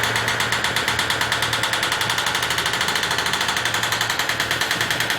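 Pneumatic rivet hammer driving rapidly and evenly on the end of a steel staybolt in a locomotive boiler, upsetting the bolt head flat against the plate to seal it against water leaks.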